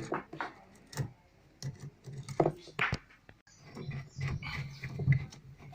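Scattered clicks, taps and knocks of washing-machine parts and hand tools being handled and fitted together during reassembly.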